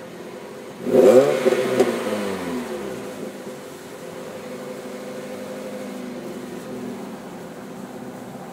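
Exhaust of a Chevrolet Cobalt SS's supercharged 2.0 L LSJ four-cylinder, run through a Pacesetter long-tube header with the stock downpipe and stock muffler. It idles, is revved once sharply about a second in, and the revs fall back to a steady idle over the next two seconds.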